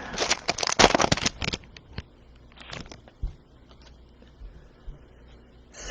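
Foil wrapper of a Prizm football card pack crinkling and tearing as a stubborn, hard-to-open pack is pulled apart. Then come fainter rustles and slides as the cards are taken out.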